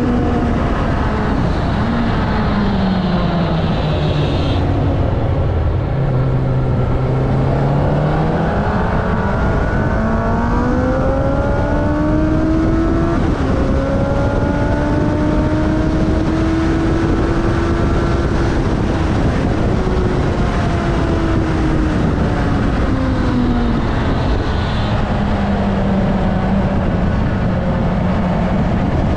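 Kawasaki ZX-9R inline-four engine heard from an onboard camera under heavy wind rush. The engine note falls as the bike slows into a corner, climbs in steps through the gears on the following straight, drops again, and holds steady near the end.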